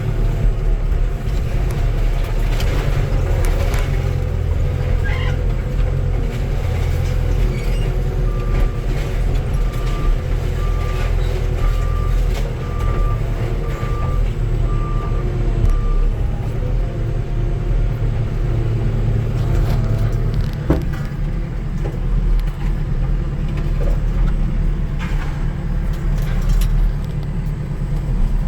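Skid steer's diesel engine running steadily under load, heard from inside the cab. A backup alarm beeps about once a second for several seconds in the first half, and a few metal knocks sound later on.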